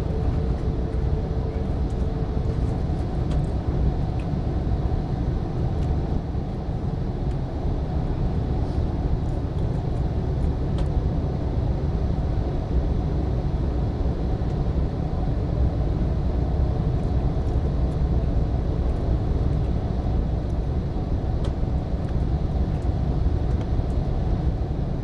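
Steady low rumble of an E4-series Shinkansen train running, heard from inside the passenger cabin. A faint steady tone in the first couple of seconds fades out.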